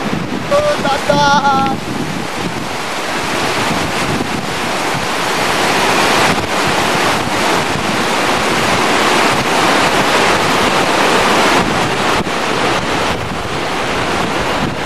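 Mountain stream rushing over a bed of stones, a dense steady wash of water noise, with wind buffeting the microphone.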